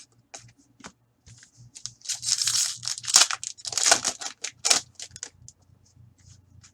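Fleer Ultra hockey cards being handled: a run of rustling, scraping sounds about two to five seconds in, with small clicks before and after.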